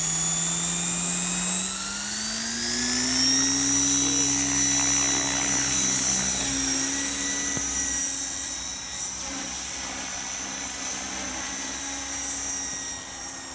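Radio-controlled model helicopter spooling up: a rotor hum and a high whine rise in pitch over the first few seconds, then hold steady, and grow fainter from about eight seconds in as the helicopter climbs away.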